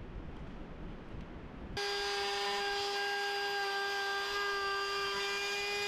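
Low wind rumble on the microphone, then about two seconds in a battery-powered Ryobi trim router cuts in at full speed. It runs with a steady high-pitched whine while it routes a recess in a wooden block.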